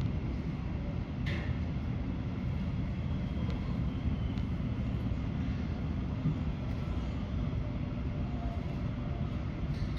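Steady low rumble of aircraft noise, with a brief sharp sound about a second in.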